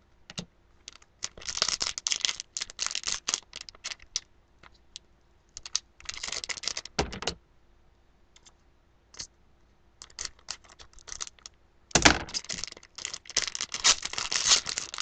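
Trading cards and a foil card-pack wrapper being handled. There are bursts of rapid crinkling and clicking, with a thud about seven seconds in and another about twelve seconds in.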